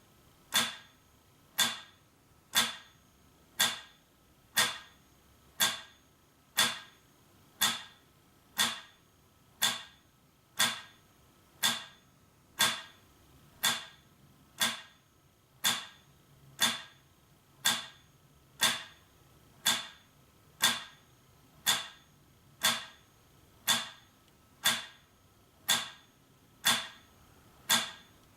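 Metronome ticking at 60 beats a minute: one sharp click each second, steady and even.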